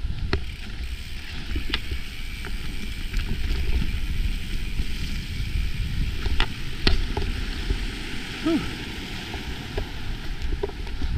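Mountain bike rolling fast over dirt singletrack: a steady rumble of tyres and wind on the microphone, with scattered sharp clicks and knocks from the bike over roots and bumps, loudest a little after six seconds.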